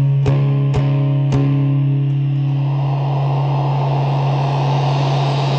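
Closing bars of an unplugged rock song with no vocals: a few plucked guitar notes over a held low chord, which then rings on until it stops abruptly just after the end.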